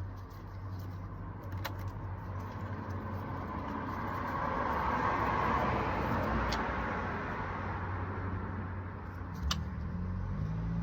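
A road vehicle passing by, its tyre and engine noise swelling to a peak in the middle and fading away, over a steady low hum, with a few light clicks of tools being handled.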